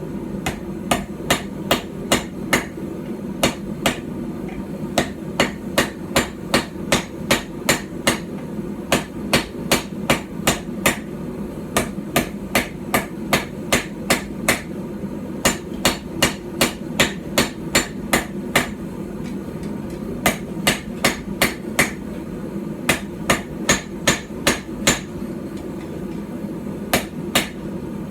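Light hand-forged hammer of about 12 ounces, with a straight peen and a flat face, striking steel on a small stump anvil while forging a small knife. Runs of ringing blows, about three a second, break off for short pauses every few seconds. A steady low hum runs underneath.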